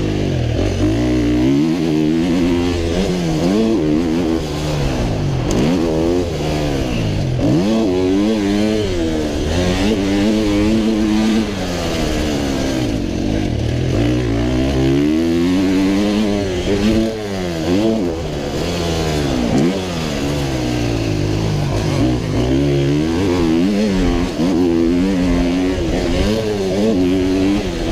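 125 cc two-stroke motocross bike's engine ridden hard around the track, revving up and dropping off again and again, every couple of seconds, as the rider runs through the gears and chops the throttle.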